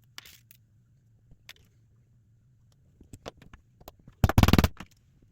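A hammer striking a snap-setting die to set a metal snap through fabric: a few light clicks and taps as the snap parts and die are placed, then a quick run of loud hammer blows about four seconds in.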